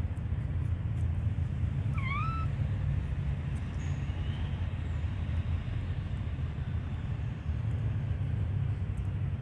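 A short, high-pitched call from a small young animal about two seconds in, with a fainter chirp a couple of seconds later, over a steady low rumble.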